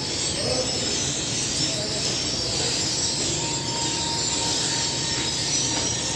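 Steady mechanical running noise of a commercial bakery's conveyor oven and extractor hood, a mix of low hum and hiss, with a faint steady whine joining about halfway.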